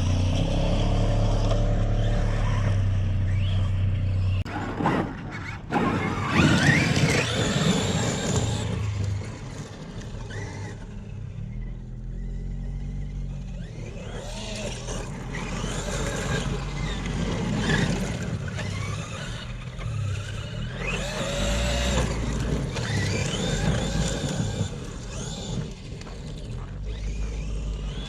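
Brushless electric motor of a large RC car whining as it speeds up and slows down again and again, over a low rumble.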